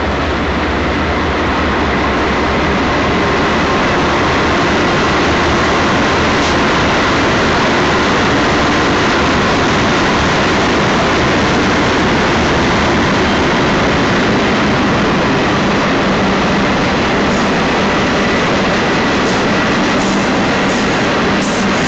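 Intermodal freight cars of a BNSF train rolling past close by: steady noise of steel wheels on the rails.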